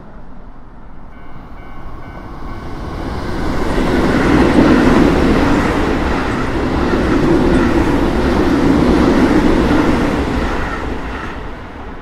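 Keio Line electric commuter train running over a level crossing, its wheels clattering on the rails as it passes close. The crossing's warning bell is heard clearly at first. The train builds to its loudest about four seconds in, stays loud while the cars go by, and fades near the end.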